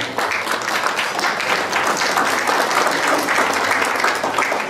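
Crowd of guests applauding, many hands clapping together in steady applause.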